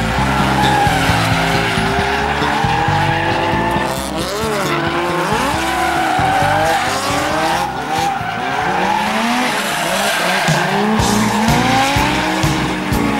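Drift cars on a circuit: engines revving up and down in repeated rising and falling sweeps while the tyres squeal and skid through the corner.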